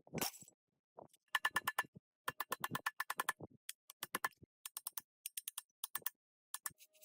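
Runs of quick metallic clicks and taps, about six to eight a second, some with a light ring, from hand-tool work on the parts of an old diesel engine.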